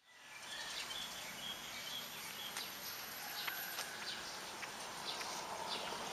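Outdoor ambience fading in over the first half second: a steady background hiss with scattered short, high bird chirps.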